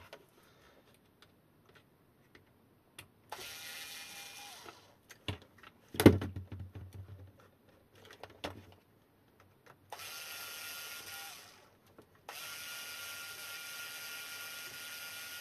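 Bosch cordless screwdriver running in short bursts to wind long screws out of a plastic battery case: three runs with a steady whine, the last starting about twelve seconds in. A sharp knock about six seconds in, with a few small clicks.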